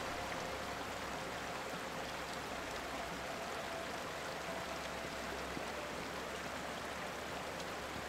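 Shallow mountain stream flowing over rocks, a steady rush of water.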